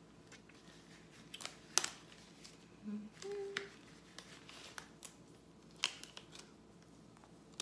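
Disposable gloves being pulled onto hands: a few sharp snaps and rustles.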